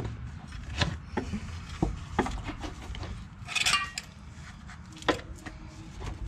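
Loose metal clinks and knocks from a Honda Civic's manual-transmission shift linkage as the unbolted linkage and its bracket are worked free and pulled down from under the car, with a brief metallic rattle about three and a half seconds in.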